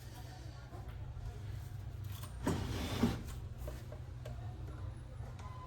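A drive belt is being worked off the pulley of a key cutting machine with a flat screwdriver: one short scraping rub about halfway through, with two peaks, over a steady low hum.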